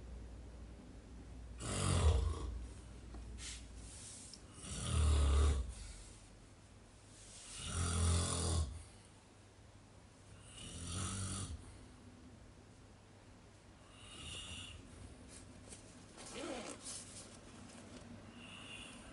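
A sleeping person snoring, one snore about every three seconds. Four strong snores come first, then softer ones after about eleven seconds.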